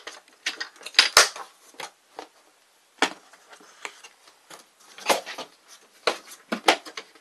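Hard plastic ammo cans being handled in a plastic storage tote: sharp knocks and clacks of cans and their lids against each other and the tote. There are a few knocks about a second in, one at three seconds, and a quicker cluster in the second half.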